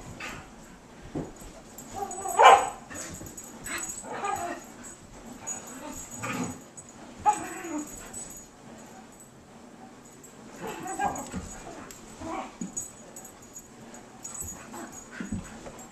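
Komondor puppies and an Australian Shepherd play-wrestling, giving short dog vocalizations every second or two. The loudest comes about two and a half seconds in.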